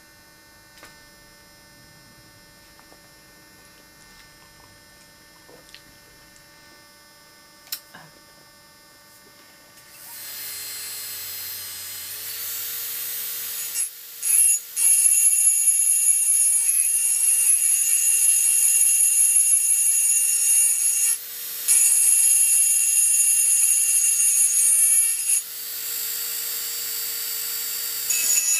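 Low mains hum, then an electric engraving drill starts up with a steady whine that rises slightly as it comes up to speed. From about fourteen seconds a small fine-grit diamond bur grinds against the glass with a loud, high-pitched whine. It breaks off briefly a few times and runs a little quieter near the end.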